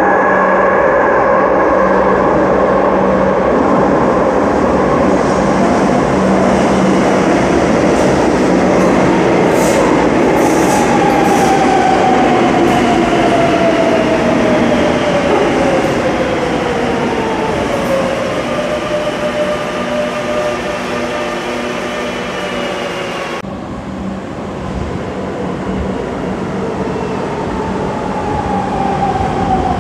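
Madrid Metro 7000-series electric train running into a station: a steady rumble of wheels and motors, with the motor whine falling in pitch as it brakes. About two-thirds of the way in, the sound cuts abruptly to another train recording, and a second falling whine comes near the end.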